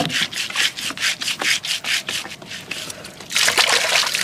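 A boiled sea cucumber rubbed rapidly back and forth on a rough stone, a quick run of rasping scrape strokes that scours off its chalky calcium layer. The scraping stops after about two and a half seconds, and about three seconds in water splashes as the sea cucumber and stone are rinsed.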